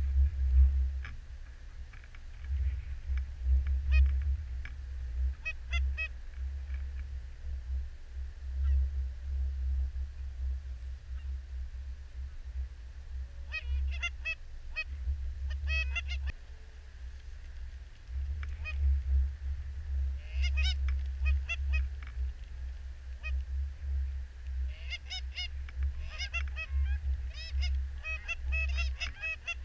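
Canada goose honks: a few scattered calls, then short clusters, building to a rapid run of honking in the last few seconds. A steady low wind rumble on the microphone runs underneath.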